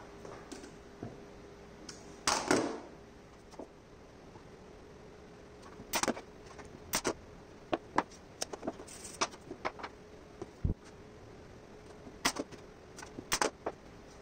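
Wooden blocks and tools being handled on a workbench: scattered sharp clicks and knocks, with one louder, longer burst a couple of seconds in, over a faint steady hum.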